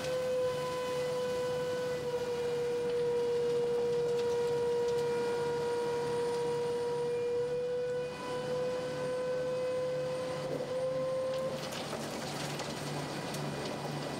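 A steady high whine from the Mud Dog 1200 hydro excavator truck's machinery during unloading, over a low, evenly pulsing running hum. The whine cuts off about three seconds before the end, leaving the lower running noise.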